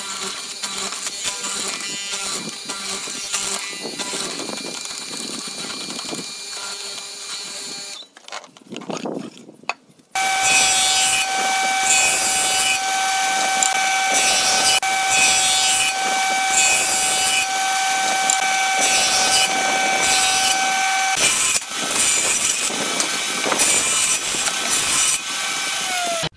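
A hollow-chisel mortiser chopping mortises into pallet pine. After a short pause, a jointer runs with a loud, steady whine while boards are pushed over its cutterhead. Near the end the whine drops in pitch as the machine spins down.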